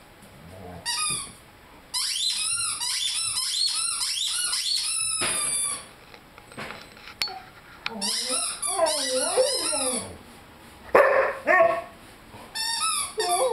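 Squeaky rubber chicken toy squeaking over and over in quick runs, about five squeaks a second, as a Rhodesian Ridgeback puppy chews it. Between the runs comes the puppy's own wavering howl, and a loud short yelp about 11 seconds in.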